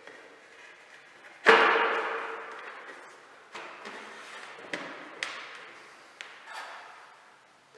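A loud sharp knock that rings briefly and fades, followed by several lighter knocks and taps.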